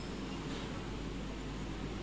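Hall ambience: a low, steady background noise with no clear voice or music.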